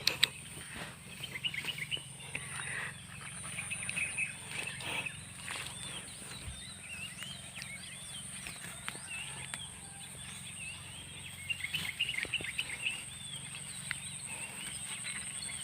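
Many small birds chirping over one another, with a steady high-pitched tone and a low hum behind them.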